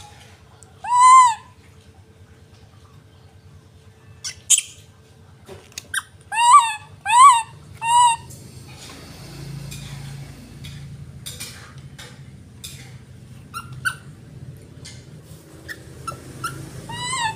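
Young macaque giving short, high, arched cries: one about a second in, three in quick succession a little past the middle, and fainter ones near the end. Light clicks and knocks are scattered between them.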